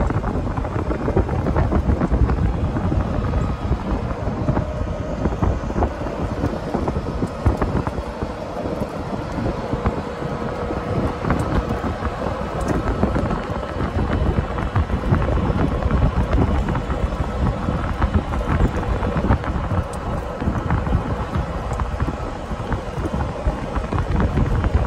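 Golf cart driving along a paved road, with wind buffeting the microphone over the steady rumble of the cart and its tyres.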